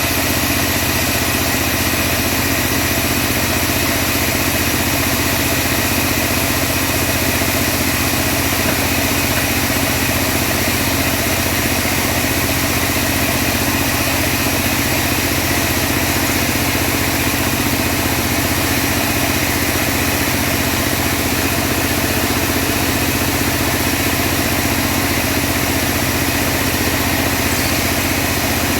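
Engine of a homemade portable bandsaw sawmill running at a steady speed, with an even, unchanging drone.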